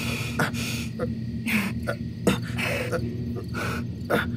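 Drama sound effects of two people climbing down a rope into a pit: several short scuffs with breaths and grunts of effort, over a steady low ambient drone.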